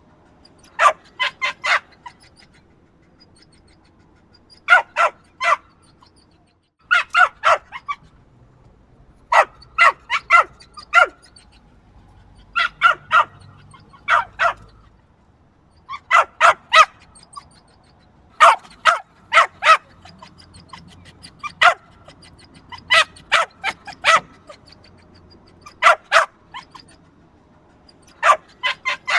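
Small dog yapping: quick volleys of two to five sharp, high-pitched barks, repeated every two or three seconds.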